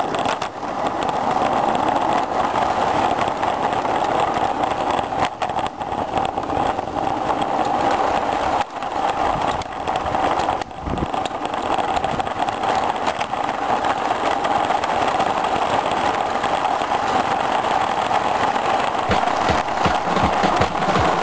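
Small 32 mm gauge (SM32) garden-railway train running on its track, heard close up from a wagon in the train: a steady rushing rumble of wheels and locomotive, with a run of quick low clicks near the end.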